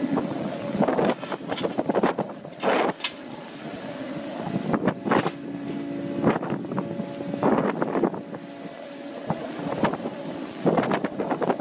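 Fishing vessel's deck machinery running with a steady hum, overlaid by irregular clanks and rattles of net-handling gear, with wind buffeting the microphone.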